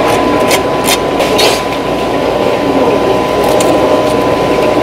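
Kitchen knife cutting through a live mackerel on a wooden cutting board: a few short scraping strokes in the first second and a half and two more a little past three seconds, over a steady background din with a constant thin tone.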